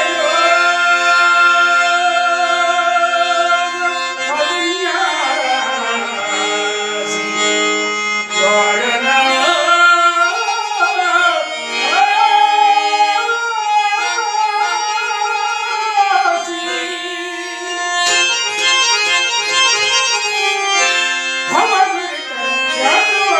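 Male voice singing a long, ornamented melodic passage of a Telugu padyam in raga Udaya Ravichandrika, holding a note at the start and then gliding through winding phrases, accompanied by a harmonium.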